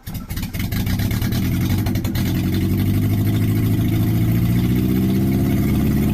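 Toyota Carina engine catching about as the sound begins, after a second of ragged strokes, then running with an uneven, knocking beat like a Subaru boxer. It is misfiring, running on only two or three cylinders, which the owner takes for a blown head gasket.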